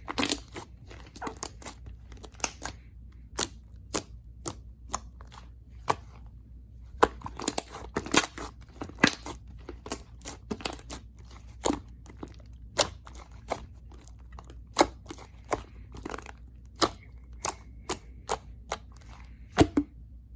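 Jelly-textured slime being squished and pressed by hand, giving irregular sharp sticky pops and clicks, a few each second.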